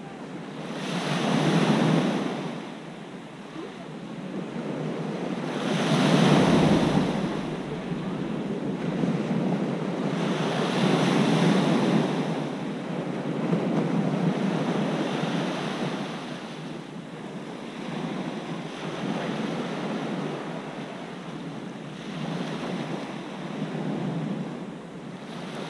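Small waves breaking and washing up a pebble beach, each surge swelling and fading about every four to five seconds, the loudest ones in the first half.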